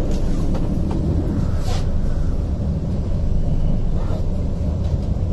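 Steady low rumble of the Vande Bharat (Train 18) electric trainset running at speed, heard from inside the coach, with a few short clicks from the wheels on the track.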